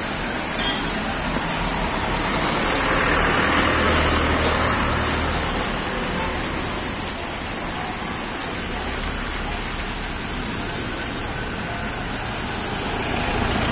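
Cars driving slowly past on a wet road: a steady hiss of tyres and engines that swells as vehicles go by, about four seconds in and again near the end.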